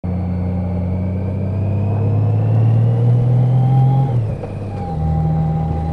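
Large touring motorcycle's engine pulling along, its note rising steadily with a faint whine climbing alongside. About four seconds in the note drops suddenly, then settles into a steady lower note.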